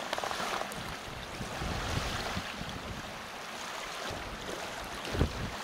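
Wind buffeting the microphone over choppy lake water, with a steady wash of waves. A brief thump near the end.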